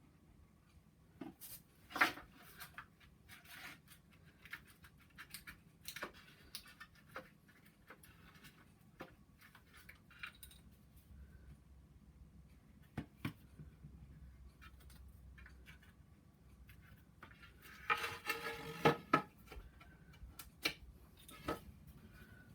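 Light clicks, knocks and scrapes of wooden frame pieces and biscuits being handled as glued biscuit joints are pushed together, with a louder rasping burst near the end.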